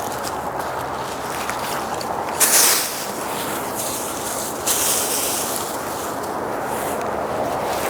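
Rubbing and rustling handling noise close to a body-worn microphone, with two louder scraping hisses about two and a half and five seconds in.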